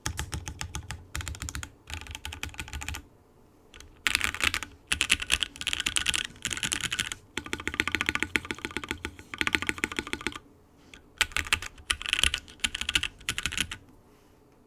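Typing on a Portal65 mechanical keyboard with lubed NK Dry Black linear switches, an FR4 plate, an o-ring mount and GMK keycaps. Fast runs of keystrokes come in bursts with short pauses, and the case adds a reverb to each clack. The typing stops about a second before the end.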